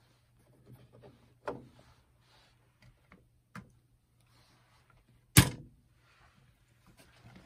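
Light clicks and taps of hands working inside the stereo's mechanism while fitting a replacement rubber drive belt, with one sharp, loud click about five seconds in, over a faint steady low hum.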